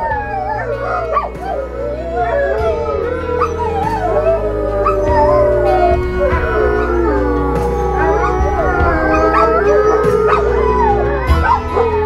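A wolf and dogs howling together in a chorus of several overlapping, wavering howls, set off by the feeling that their dinner is coming.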